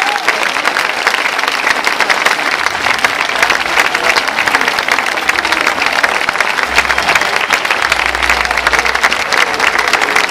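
Large audience applauding steadily, a dense and even clapping.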